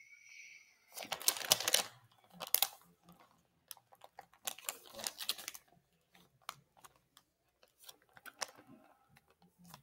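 Plastic bait packaging crinkling and rustling as it is handled, in bursts about a second in and again around four and a half seconds in, with scattered light clicks and taps in between.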